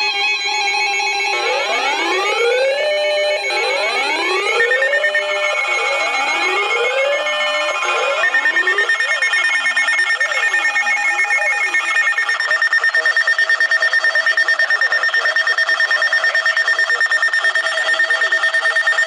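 Several emergency-alert receivers and weather-alert radios sounding their alarm tones at once, several steady tones layered together. For the first half, siren-like tones sweep up and down. From about the middle, a steady high tone pulsing rapidly takes over.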